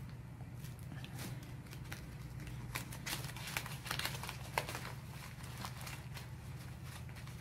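Acrylic-painted copy paper being crumpled and kneaded by hand in the momigami technique: a run of crinkling and crackling, busiest from about three to five seconds in.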